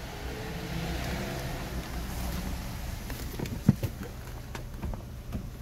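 Hyundai Avante HD 1.6 CVVT petrol engine idling steadily, heard from inside the cabin, running on four new ignition coils and spark plugs. A sharp click sounds about three and a half seconds in.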